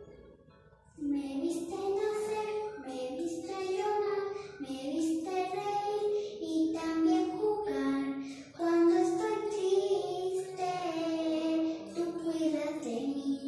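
A young girl singing solo, her voice coming in about a second in and carrying a melody through the rest.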